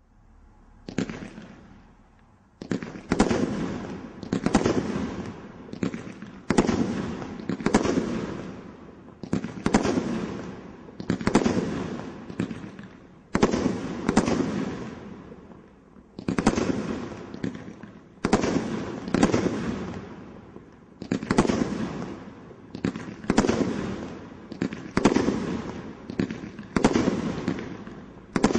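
Multi-shot firework cake (Magical Palms) firing its tubes in sequence, about one shot a second, each a sharp bang that fades away over the following second, with a brief pause about halfway through.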